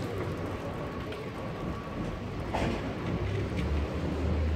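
City street ambience: a steady low rumble of traffic that grows stronger near the end, with one sharp clack a little past halfway.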